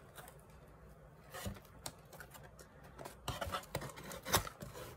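Cardboard mailer box being opened and handled: the lid flap folding back, with scattered scrapes, rustles and taps of cardboard, the sharpest one near the end.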